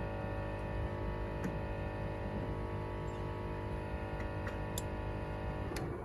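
A machine running with a steady hum and several fixed tones, with a few faint sharp taps; near the end the hum breaks up into rougher, noisier sound.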